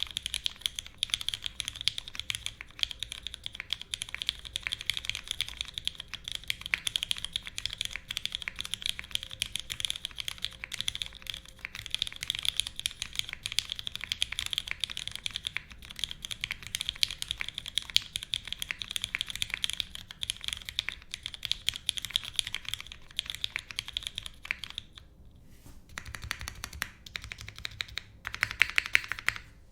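Steady typing on a Singa Kohaku custom mechanical keyboard with lubed Cherry MX Black linear switches, GMK keycaps and a full aluminium plate with no foam. About 25 seconds in the typing stops briefly, then picks up again in short, fast bursts.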